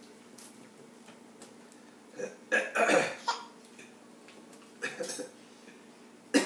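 A baby laughing in short, breathy bursts, loudest about halfway through, with smaller bursts about five seconds in and at the end, over a low steady hum.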